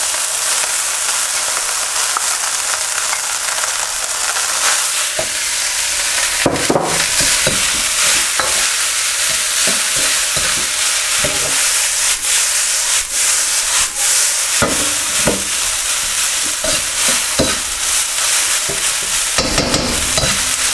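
Pre-cooked boiled rice frying in hot oil in a wok, a steady sizzling hiss. A metal ladle scrapes and knocks against the wok now and then as the rice is broken up and spread out.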